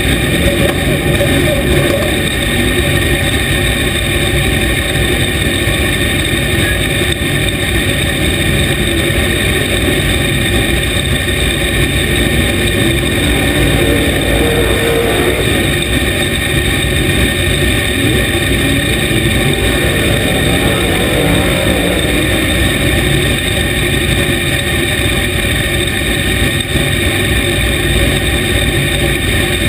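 Dirt late model race car's V8 engine idling, heard from inside the cockpit: loud and steady throughout.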